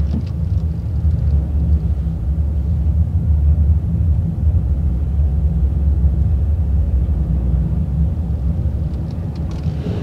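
Steady low rumble inside the cab of a 2017 Honda Ridgeline driving on a snowy road: engine and tyre noise. It grows a little louder in the middle and eases off near the end.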